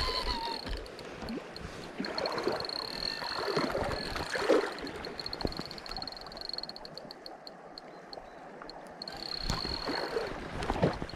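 Spinning reel being cranked to retrieve a spoon lure, its gearing giving a high, fast, even whir of ticks, with a few knocks from handling the rod.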